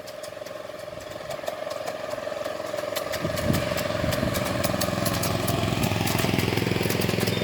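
Miniature Class 35 diesel-outline locomotive approaching, its engine running and growing louder from about three seconds in, with rapid sharp clicks throughout.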